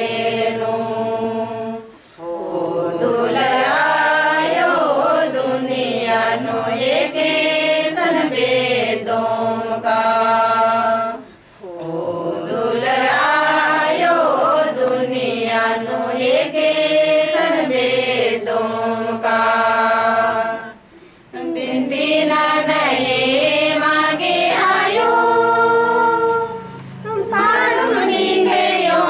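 A group of voices singing a devotional hymn together, in long phrases with brief pauses for breath between them.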